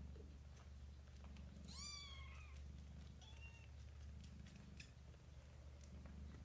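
Cats purring steadily while kittens nurse, with two short high-pitched kitten mews about two and three seconds in. There are a few faint clicks near the middle.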